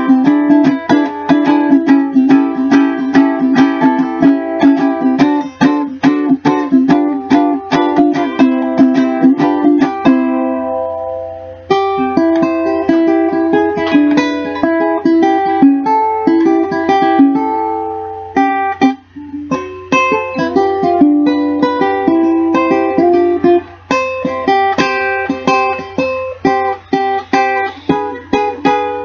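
Cocobolo ukulele played solo: fast, dense strumming for about ten seconds, a chord left to ring, then a picked melody mixed with chords, easing off briefly a little after halfway before carrying on.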